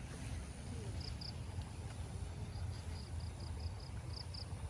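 Faint rural outdoor ambience: a steady low rumble under short, high chirps that begin about a second in and repeat a few times a second, of the kind an insect or small bird makes.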